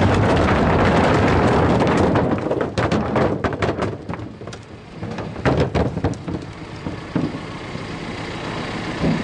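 A bucketload of river rocks, each 7 to 22 pounds, dumped from a front loader into a pickup bed of sheet molded composite. A dense crash of stones pouring in lasts about two seconds, then single rocks knock and roll in the bed for a few more seconds before settling.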